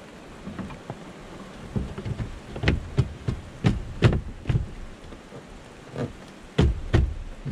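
Irregular sharp taps and knocks inside a pickup's cab, a cluster of louder ones a few seconds in and two more near the end, over a faint steady hiss.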